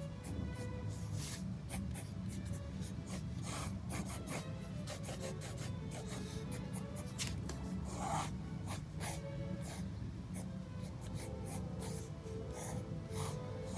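Fine-tip ink pen scratching on sketchbook paper in many short, irregular strokes, over soft background music.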